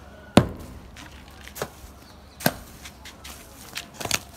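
Steel shovel blade chopping into wet cement mortar and striking the concrete floor as the mortar is mixed by hand: four sharp chops, the loudest near the start.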